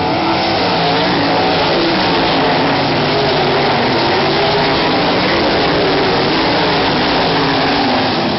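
Several sprint cars' V8 engines racing together, loud and continuous, their overlapping engine notes wavering up and down as the cars accelerate and lift around the track.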